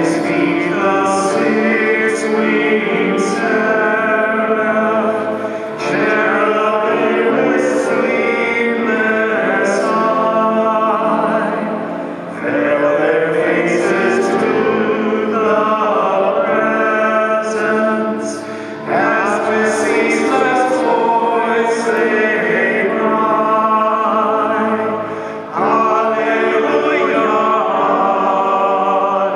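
A hymn sung with accompaniment, in phrases about six seconds long with brief breaths between them.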